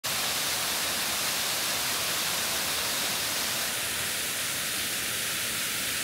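Steady, even hiss of rushing water.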